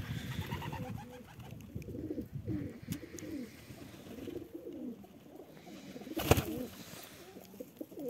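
Domestic pigeons cooing: a run of low, wavering coos from the flock. A single sharp click about six seconds in is the loudest moment.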